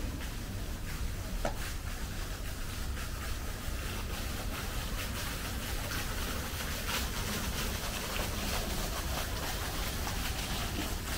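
Steady outdoor background noise: a low rumble under an even hiss, with a few faint clicks here and there.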